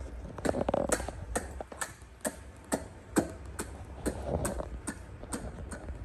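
A person making quick, sharp kissing smacks with the lips pressed against the hand, about two or three a second in an uneven run.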